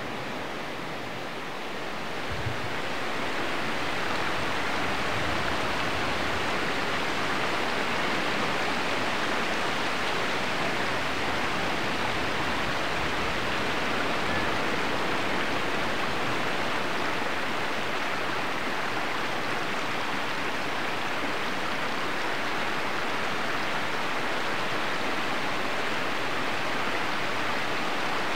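Steady rushing and gurgling of a shallow woodland stream's running water, growing louder a couple of seconds in and then holding even.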